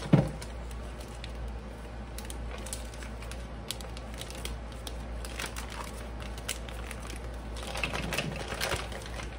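Clear plastic packaging crinkling and rustling in irregular crackly bursts as raw ground beef is worked out of it into a mixing bowl, with a soft thump at the start. A steady low hum sits underneath.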